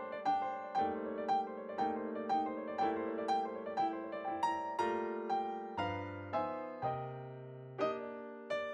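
Background piano music, notes struck at about two a second over held chords, thinning out briefly about six seconds in.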